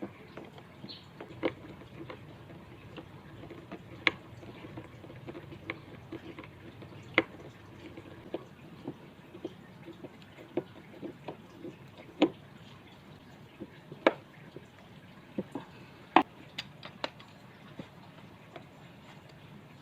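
Scattered light clicks and knocks at irregular intervals, a handful of them louder than the rest.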